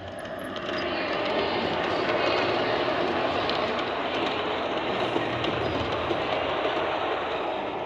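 Model freight train running past on its track: a steady rolling clatter of wheels on rail that grows louder about a second in and then holds.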